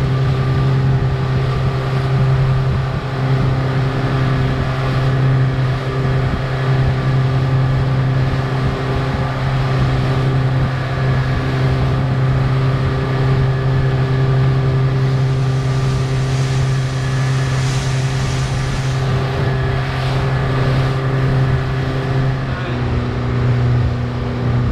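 A fishing boat's engine running steadily under way, a constant loud drone whose pitch steps down slightly near the end.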